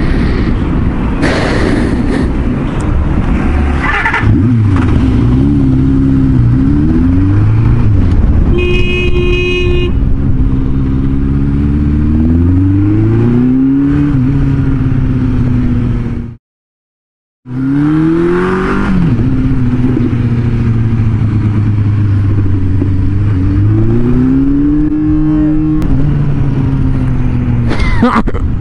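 Suzuki GSX400F four-cylinder motorcycle engine pulling away and accelerating through city streets, its pitch rising through each gear and dropping at the shifts, over wind noise. A short steady horn tone sounds about nine seconds in, and the sound cuts out for about a second past the middle.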